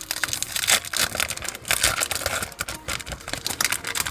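Foil wrapper of a Yu-Gi-Oh! booster pack crinkling and tearing as gloved hands rip it open, a dense run of irregular crackles.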